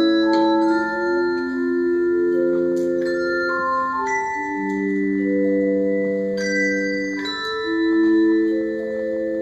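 Handbell choir playing music: bells struck one after another and in chords, each note ringing on for a second or two so that the tones overlap.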